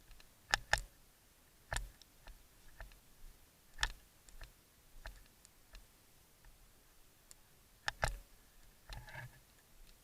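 Scattered sharp cracks of airsoft guns firing, some as single shots and two as quick doubles, with fainter clicks between them.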